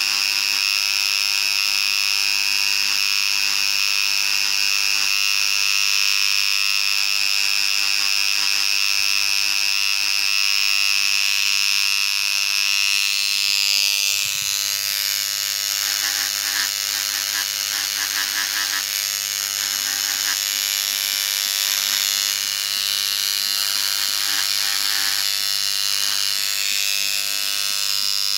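Handheld electric engraving pen buzzing steadily as its point scratches into polished black granite; its tone changes about halfway through.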